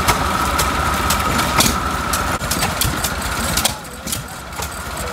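Antique stationary gas engines running a belt-driven wood-cutting wheel as a log is held against it: a steady whine with sharp, irregular engine beats. About three and a half seconds in, it drops to the quieter running of hit-and-miss engines.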